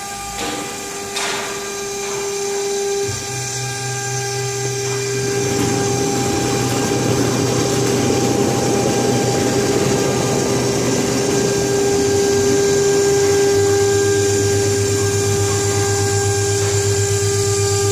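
CNC router's 3 kW water-cooled spindle running with a steady whine as the bit cuts through fibreboard, the cutting noise thickening midway. Underneath, a lower motor hum shifts pitch about three seconds in and again near the end as the gantry changes moves.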